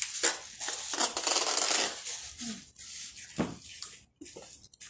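Plastic bags rustling and crinkling as goods are handled and stuffed into a cardboard box, dense for the first two seconds and then in short scattered bursts, with a few light knocks.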